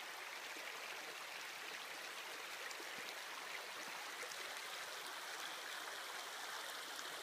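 Shallow, rocky creek running and babbling steadily over stones.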